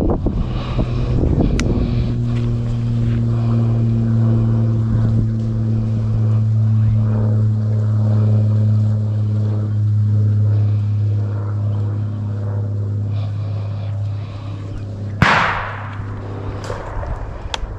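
A steady low drone at one constant pitch, like an engine running, weakens a little after about 14 seconds. About 15 seconds in comes one sharp shotgun shot with a short echoing tail.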